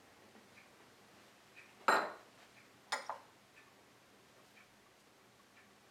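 Metal spoon clinking against a stainless steel mixing bowl: one sharp clink about two seconds in, a quick double clink a second later, and faint light taps between.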